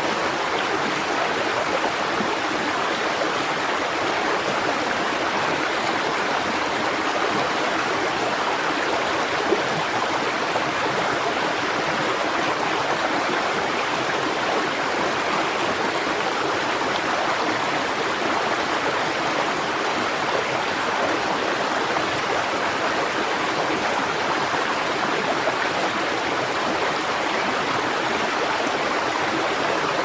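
Shallow rocky stream rushing and splashing over a low cascade, a steady even sound of running water.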